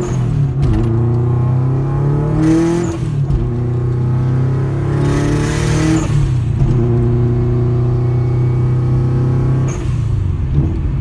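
Subaru Impreza GC8's engine through a Tomei full titanium exhaust, heard from inside the cabin while driving. The note holds fairly steady for a few seconds at a time and breaks off and picks up again about four times, as at gear changes, with two short hissing rushes in between.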